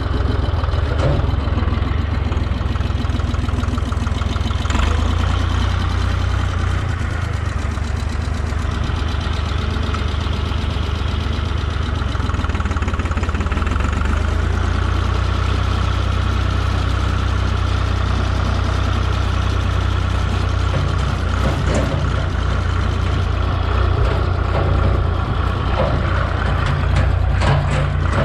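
A tractor's diesel engine running steadily throughout.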